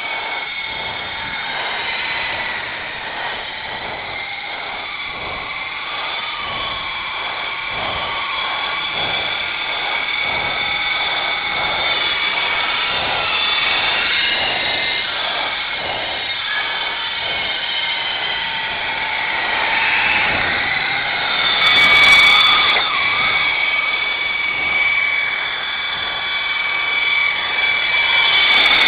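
Syma S033G radio-controlled helicopter in flight: its small electric motors and rotors give a high whine made of several tones that drift up and down in pitch as the throttle changes, with a dip and swell about two-thirds of the way in.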